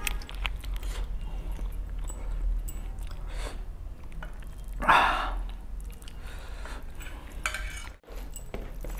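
Close-miked eating sounds: chewing, smacking, and wet squelching as mutton gravy is poured from a glass bowl onto rice and mixed in by hand, with a louder wet sound about five seconds in. A steady low hum runs underneath.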